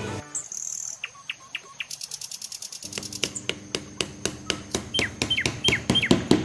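Birds chirping in short falling chirps over a steady high insect trill, with a rapid run of even clicks through the second half.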